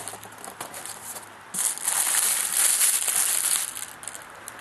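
Plastic packaging bag crinkling and rustling as it is handled, loudest for about two seconds from a second and a half in, with lighter rustles and crackles before.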